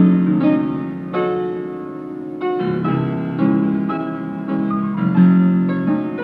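Piano playing an instrumental passage of a Neapolitan song's accompaniment without the voice, chords struck one after another about every half second to second and left to ring out.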